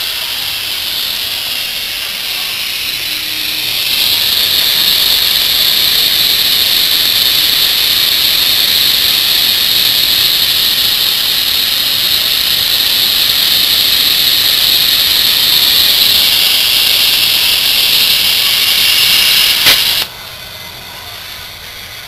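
Unloader valve on a hermetic single-cylinder fridge compressor used as an air pump, hissing steadily as it bleeds air while the compressor starts charging the tank, getting louder about four seconds in. Near the end the valve snaps shut with a click and the hiss cuts off, leaving the compressor running quietly.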